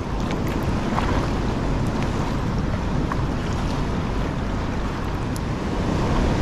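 Choppy sea water sloshing and washing around a kayak, with wind buffeting the microphone. It is a steady, even rush, with a few faint ticks.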